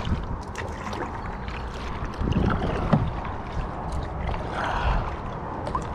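Wind rumbling on the microphone over water and handling noise from a kayak, with small knocks throughout and two louder splashy stretches, about two and a half seconds in and near five seconds in.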